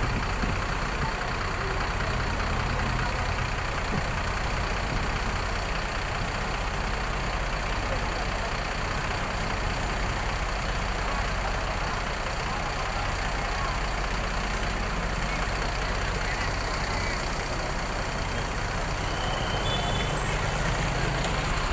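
Large intercity bus's diesel engine idling steadily, a constant low hum.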